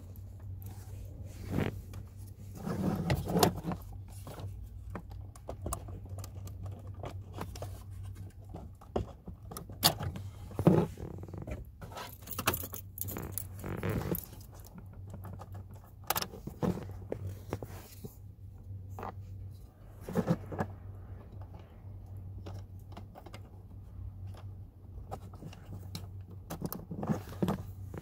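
Irregular plastic clicks, knocks and rattles of hands working at the relays in a Volkswagen Golf Mk5's relay carrier under the steering column, over a steady low hum.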